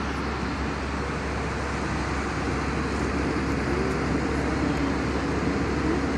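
Steady engine and airflow noise of an airliner in flight, heard inside the passenger cabin. Near the end a faint wavering hum sits on top of it.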